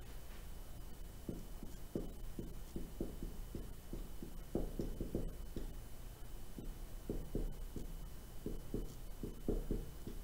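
Dry-erase marker writing on a whiteboard: a run of short, irregular strokes over a steady low hum.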